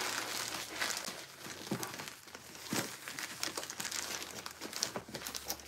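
Plastic poly mailer bag crinkling and crackling irregularly as hands handle it and work it open.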